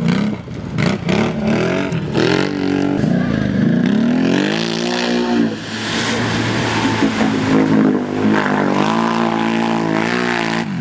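Off-road ATV engine revving under load, its pitch climbing and falling with the throttle, then holding fairly steady through the second half.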